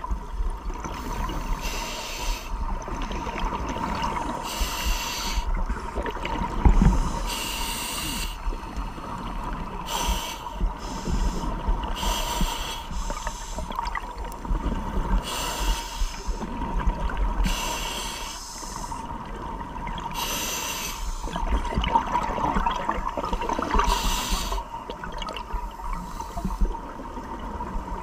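Scuba regulator breathing heard underwater: a short hiss of each breath every few seconds, with bubbling and rumble between, over a steady thin hum.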